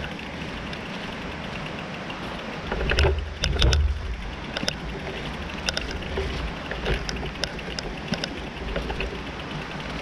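Mountain bike clicking and rattling on a rough dirt trail over a steady rushing noise. A heavier jolt of knocks comes about three to four seconds in.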